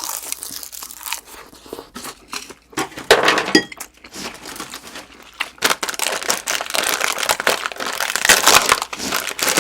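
Close-miked chewing of crispy fried breaded pork cutlet: dense crunching and crackling, loudest in a burst about three seconds in and again through the second half.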